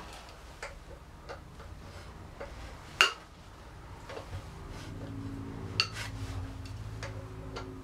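Hand tools clicking and clinking on metal as the rear wheel of a BMW paralever airhead is unbolted: scattered sharp clicks, the loudest about three seconds in. A low steady hum comes in about halfway through.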